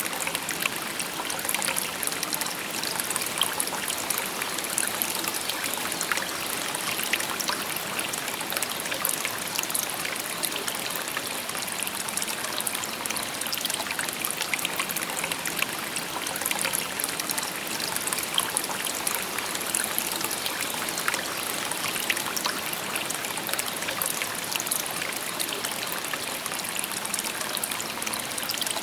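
Shallow river babbling steadily, water trickling and splashing over stones with many small bright splashes.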